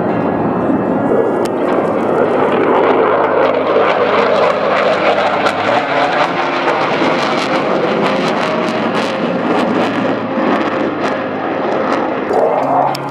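F/A-18 Hornet fighter jet's twin engines as it flies over, a loud rushing jet roar with a fine crackle, loudest a few seconds in.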